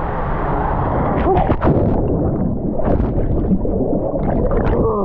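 Water rushing and splashing around a rider sliding down an enclosed water-slide tube. There are sharper splashes about a second and a half in, around three seconds, and near the end.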